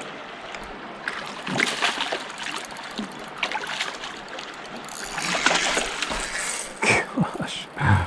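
A hooked rainbow trout splashing and thrashing at the water's surface as it is fought toward shore, in irregular splashes that grow louder near the end, over a river flowing.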